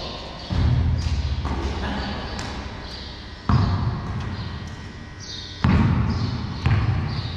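Basketball bouncing on a bare concrete floor: four separate bounces at uneven intervals, each with a long echo off the hard walls of a large empty hall.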